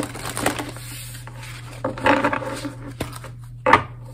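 A deck of oracle cards being shuffled and handled by hand: a run of soft rustles and short card clicks, over a steady low hum.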